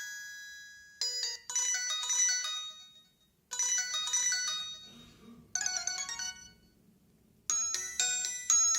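Ringtone melodies of a Samsung SGH-M600 mobile phone played through its small speaker: bright, chiming electronic notes in short tunes that stop and start again several times.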